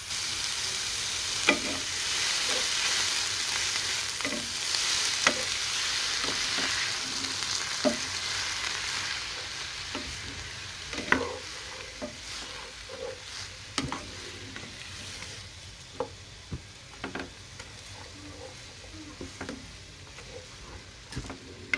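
Chopped tomatoes and onion sizzling in olive oil in a pan while being stirred, a cooking utensil knocking and scraping against the pan now and then. The sizzle eases off over the second half.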